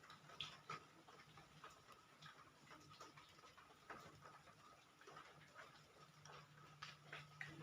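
Near silence: faint, irregular clicks and ticks over a low steady hum.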